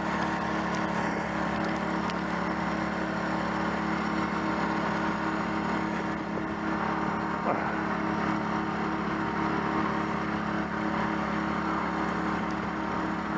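Boat engine idling steadily with an even drone, and a few light knocks over it.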